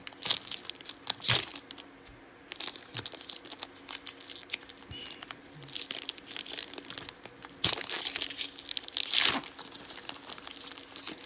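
Foil trading-card pack wrapper being torn open and crinkled in a run of sharp tears and crackles, loudest about a second in and again twice near the end.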